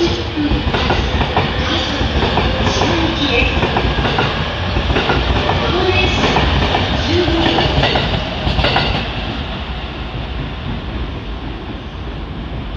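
E231-series electric commuter train running through the station, its wheels clattering over the rail joints; the clatter fades out about nine seconds in as the train moves away.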